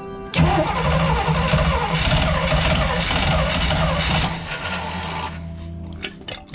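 Luhrs 28's inboard gasoline engine with a freshly fitted rebuilt Rochester carburetor starting up and running rough, then dying away about four seconds in; a few clicks near the end, with background music throughout.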